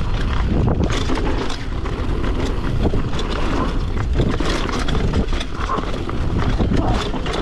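Wind buffeting the camera microphone over the rumble of a downhill mountain bike's tyres rolling fast on a dirt and rock trail, with frequent sharp knocks and rattles as the bike hits rocks and bumps.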